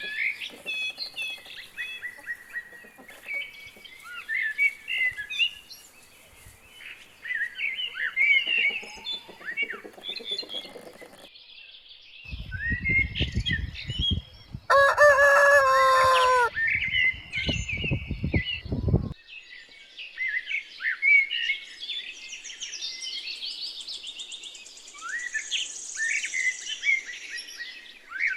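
Small birds chirping and twittering in quick, overlapping calls, with a rooster crowing once about halfway through.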